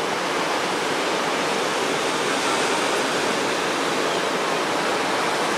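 Steady wind blowing across the microphone, an even, unbroken rush of noise.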